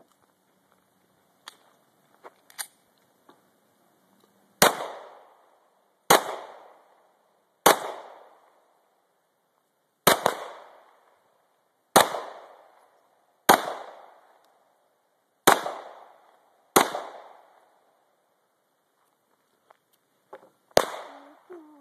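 Ruger SR9c 9mm compact pistol fired nine times in slow, deliberate single shots about one and a half to two seconds apart, with a longer pause before the last. Each shot is a sharp crack that trails off in echo.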